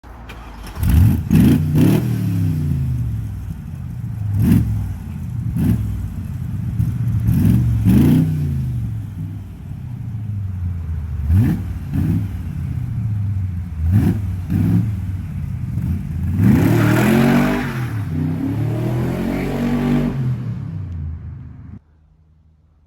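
Chevrolet 350 small-block V8 in a Dax Cobra running and being revved over and over, each rev rising quickly and falling back. A longer rev comes about three-quarters of the way through, and the engine sound stops abruptly near the end.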